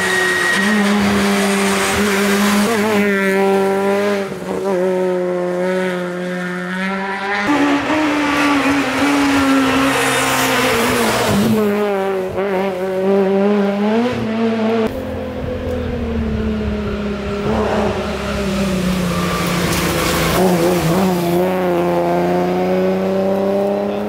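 Rally car engines at full stage pace, revving hard. The engine pitch climbs, drops sharply at each gear change and falls away as the cars brake and pass, several times over.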